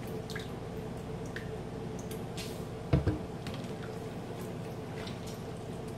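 Wet squishing of raw meat being turned over by hand in marinade in a plastic bowl, with small clicks and one dull thump about three seconds in.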